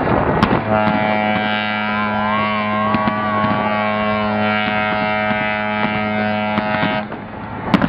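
Ship's horn sounding one long steady multi-tone blast lasting about six seconds, over crackling and banging fireworks. A whistle glides up and then falls partway through.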